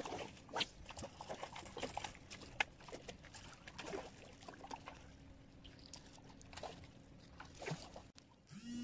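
Small waves lapping and gurgling among shoreline boulders, with scattered faint splashes and clicks at an irregular pace.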